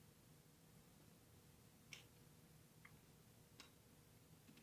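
Near silence broken by three faint, sharp clicks, about a second apart, from a small screwdriver and a wire being worked into a screw terminal block.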